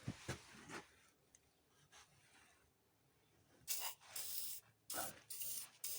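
Faint handling noise from work on a part: a couple of light clicks in the first second, then three short rasping scrapes in the second half.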